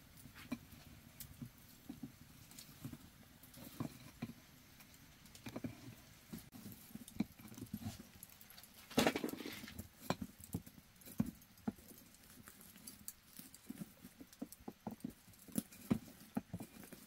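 Irregular light taps and knocks, scattered unevenly, with one longer, louder rustling scrape about nine seconds in.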